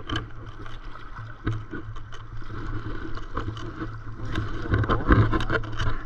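Stand-up paddle strokes on calm sea: the paddle blade dipping and pulling through the water with splashes, and water washing along the hull of a BOTE Valhalla paddleboard. Several strokes, the loudest about five seconds in, over a steady low rumble.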